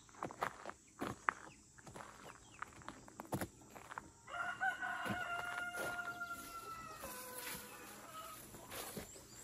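A rooster crows once, a long drawn-out call starting about four seconds in and trailing off near the end. Before it there are short clicks and brief chicken calls.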